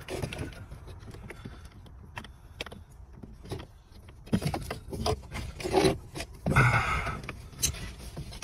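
Hands rubbing and scraping against wiring and plastic dashboard trim, with scattered small clicks and knocks, busier and louder in the second half.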